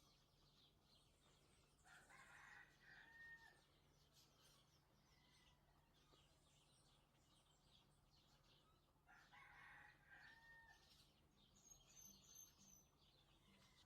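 A rooster crowing twice, faintly, each crow about a second and a half long, over faint high chirping of small birds.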